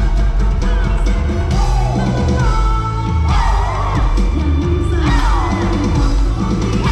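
Loud stage dance music with a heavy drum beat and singing, with a falling sweep in pitch about every one and a half to two seconds.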